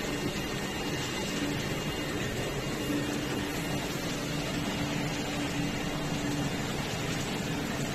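Steady machine hum and air noise from the CNC oscillating knife cutter's vacuum hold-down blower running, with a faint low tone that swells and fades.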